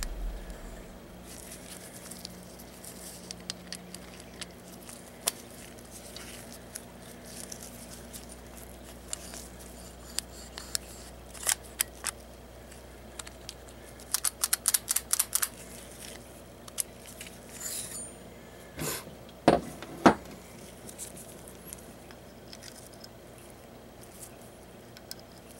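Steel parts of a .22 bolt-action rifle bolt and receiver being handled and fitted together: scattered small metallic clicks and scrapes, a quick run of clicks around the middle, and two louder clacks about half a second apart later on.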